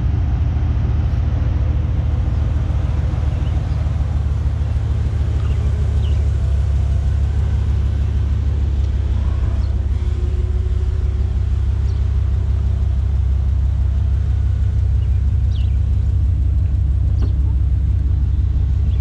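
GMC Sierra 2500HD's 6.0-litre Vortec gas V8 idling steadily, low-pitched and even.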